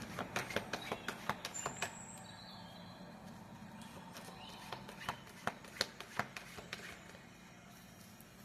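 Tarot cards being shuffled and handled, a quick run of light clicks and snaps that comes in two spells. Faint bird chirps sound in the background about two seconds in.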